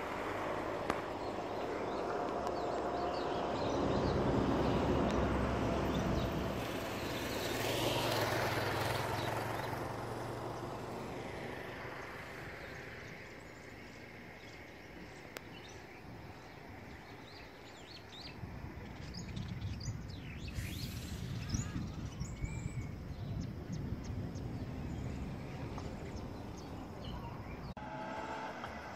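Outdoor roadside ambience: a car passes in the first third, with engine hum and tyre noise swelling and fading. Later there is a low rumble with a few bird chirps.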